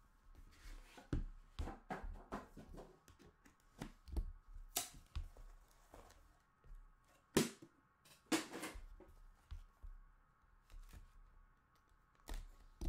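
Hands opening a cardboard trading-card box and sliding out the card pack: scattered short scrapes, taps and rustles of cardboard, with a few sharper knocks about five, seven and eight seconds in.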